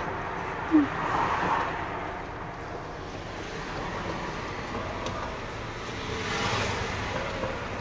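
Steady street traffic noise heard from inside a parked car, swelling briefly about six and a half seconds in. A brief squeak a little under a second in is the loudest moment.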